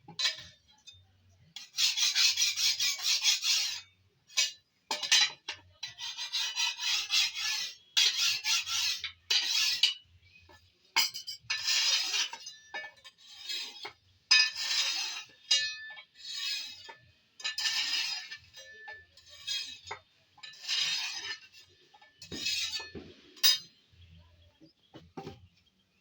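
A hand file rasping on metal in repeated strokes, each lasting a second or two, with short pauses between them.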